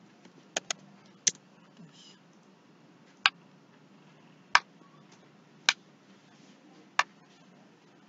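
Sharp single clicks from computer input, seven in all: a quick pair near the start, then one about every second and a quarter.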